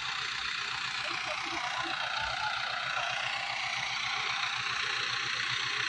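Ford 5880 tractor's diesel engine running steadily, an even low throb under a constant hiss.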